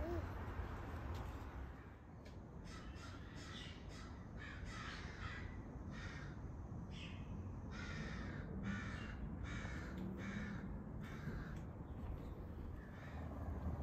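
A bird giving a long run of harsh, cawing calls, about two a second, starting about two seconds in and stopping shortly before the end, over a steady low rumble.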